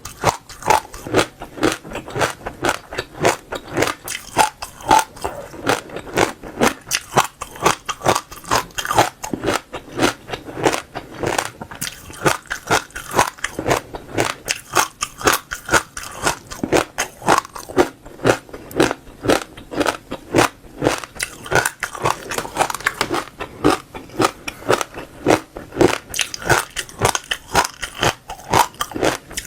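Close-miked chewing of crunchy seeds: rapid crisp crunches and cracks as the seeds break between the teeth, a few each second without pause.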